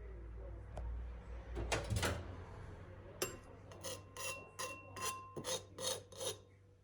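A series of short rasping scrapes, about a dozen strokes, some with a faint ringing tone, after a low rumble at the start.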